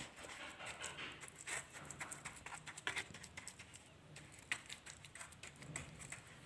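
Colored sand crumbling: many irregular, crisp crackles and small taps in quick succession.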